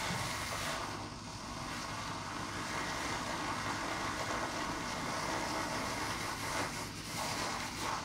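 Handheld milk frother whirring steadily as its whisk spins in warm milk, frothing it into foam. The whir dips briefly about a second in and again near the end.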